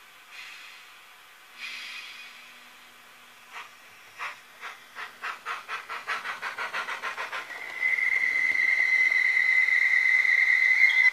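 Sound decoder of a Brawa 40411 model of the PKP Pt31 steam locomotive: two short hisses of steam, then exhaust chuffs that start slow and quicken as the locomotive pulls away. These are followed by a long, loud, steady steam whistle that cuts off suddenly near the end.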